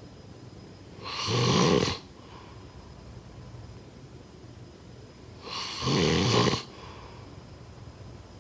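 Snoring: two loud snores, each about a second long and about four and a half seconds apart, with quieter breathing between them.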